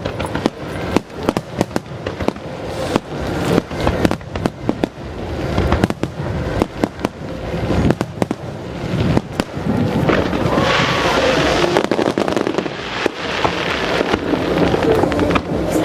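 Aerial firework shells bursting in rapid succession: many sharp bangs one after another, growing denser and more continuous in the second half.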